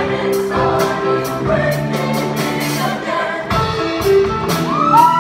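Show choir singing with band backing, a drum kit keeping a steady beat. Whoops from the audience start near the end.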